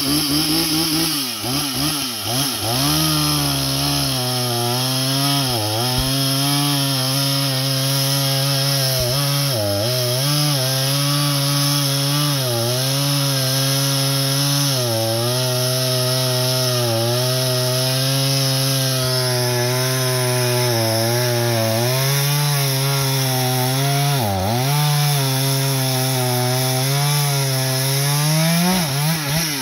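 Two-stroke chainsaw cutting through a fallen tree trunk, its engine running steadily under load with the pitch sagging every few seconds as the chain bites into the wood. Near the end it revs up briefly, then drops back as the throttle is released.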